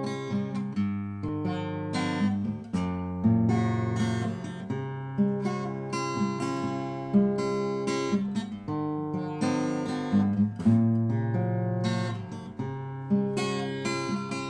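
Steel-string acoustic guitar strumming chords in a steady rhythm, each stroke ringing out and decaying before the next.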